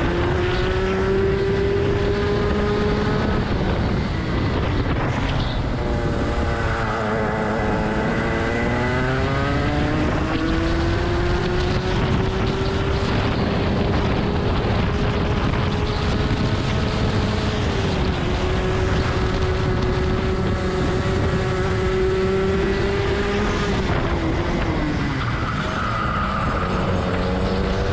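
Rotax 125cc two-stroke kart engine at high revs, heard from on board. The pitch falls as the kart slows into corners, once about five seconds in and again near the end, then climbs back as it accelerates out.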